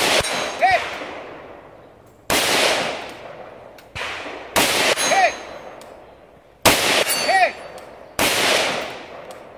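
Five rifle shots, fired one at a time about one and a half to two and a half seconds apart, each echoing off the range. After three of them a steel target gives a short metallic ring, the sign of a hit.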